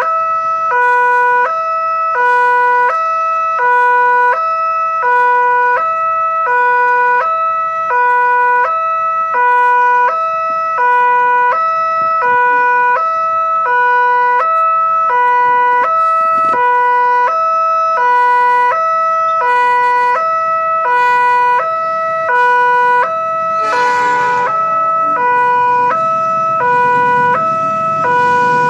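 Railway level-crossing alarm: an electronic two-tone warning from the crossing's pole loudspeaker, a high note and a low note alternating about twice a second, signalling that a train is coming. Near the end a low rumble builds as the train approaches.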